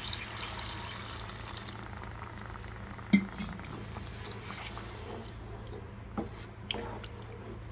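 Water poured into a pan of hot, thick masala, hissing and splashing for about the first two seconds. Then a spatula stirs the thinning curry, with a few knocks against the pan, the loudest about three seconds in.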